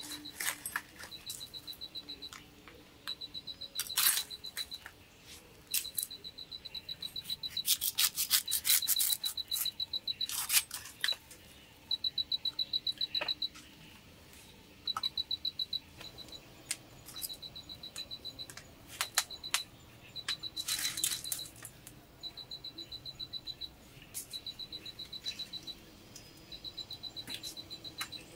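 Sharp cracks and clicks of dry kindling and wood shavings being snapped, knocked and handled with a machete over a fire pit. Throughout, an insect trills in high, rapid pulsed bursts about a second long, every couple of seconds.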